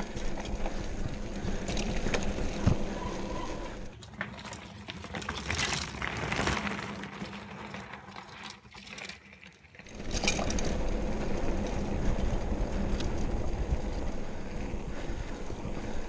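Mountain bike riding over a dirt trail: the tyres running on dirt and the bike's chain and frame rattling, under a steady low rumble of wind on the camera microphone. For several seconds in the middle the rumble drops away, leaving lighter clicks and rattles, then it returns.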